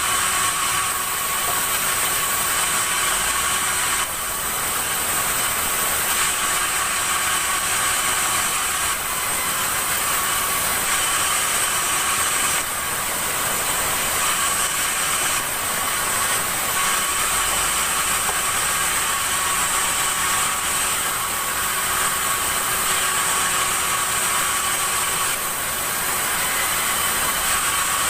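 Sawmill saw running through a large acacia log: a steady high whine over a dense rasp, with no break.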